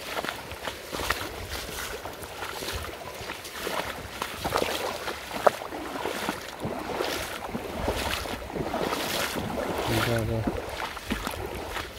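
Legs wading through a shallow, fast-flowing river: irregular splashing and swishing of water with each step, over the steady rush of the current.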